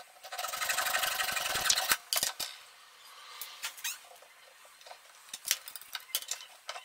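A thin metal strip being cut by hand: one continuous rasping burst lasting about a second and a half, then lighter scrapes and clicks.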